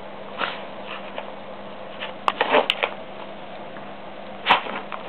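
Long-haired dachshund sniffing and nosing at a taped cardboard parcel, trying to get it open: a few short scratchy scuffs of nose and paw against the cardboard and tape, the busiest cluster about halfway through.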